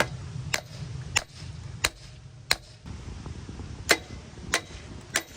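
Hammer blows on the mini bike's steel frame, bending it out to make room for the wheel. There are eight sharp strikes, about one every two-thirds of a second, with a short pause midway. A steady low hum runs underneath.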